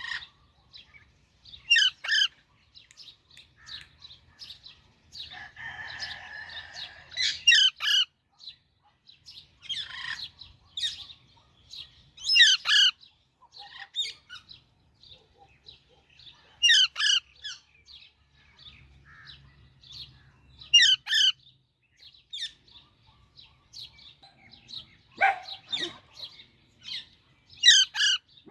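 Baby Alexandrine parakeet chirping: loud, short, high-pitched calls every few seconds, with softer chirps between them. There is a brief scratchy noise about five seconds in.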